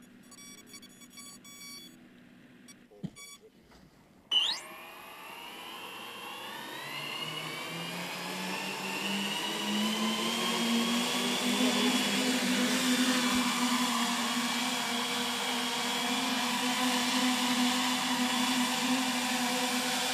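GL-10 Greased Lightning tilt-wing drone's ten electric motors and propellers spooling up. Faint electronic beeping comes first. About four seconds in the motors start suddenly and loudly, and the multi-tone whine climbs in pitch over several seconds, then holds as a steady drone while the aircraft lifts into a hover.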